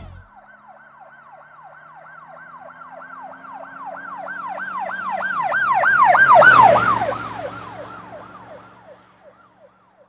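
Emergency vehicle siren in a fast yelp, about four rising-and-falling sweeps a second. It swells to its loudest about six and a half seconds in, with a rush of passing noise, then fades away, its pitch dropping slightly as it passes.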